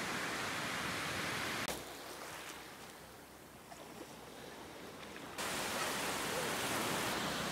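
Ocean surf washing onto a sandy beach, a steady rush. From just under two seconds in it drops for about three and a half seconds to the softer, quieter wash of shallow water with a few faint ticks, then the surf comes back at full level.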